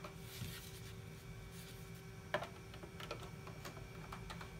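Faint plastic scraping and small clicks from a 3.5-inch floppy disk being pushed into a Macintosh SE's floppy drive, with one sharper click a little past two seconds in. The disk catches in the drive, which the owner believes is misaligned after reassembly.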